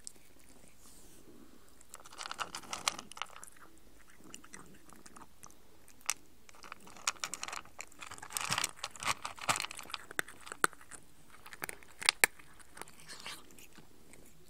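A cat chewing its food in irregular bouts of sharp clicks, a short bout about two seconds in and a longer one from about six seconds to near the end.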